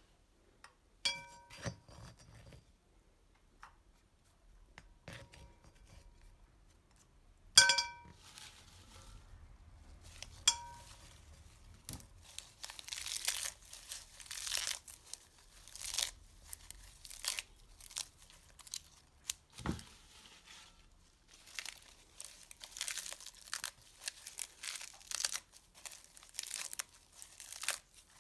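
Fresh woad leaves being crushed and torn by hand in a ceramic suribachi, a dense crackling rustle from about twelve seconds in, as the leaves are pulped for woad balls. Before it come three short ringing clinks off the ceramic bowl.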